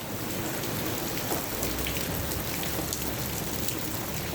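Heavy rain pouring steadily, a dense even hiss of drops hitting surfaces with scattered single drop ticks.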